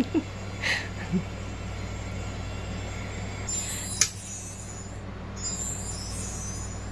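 A tinsel-trimmed star wand toy rustling as it is waved, in two bouts in the second half, the first ending in a sharp click, over a steady low hum. Two short squeaks come in the first second or so.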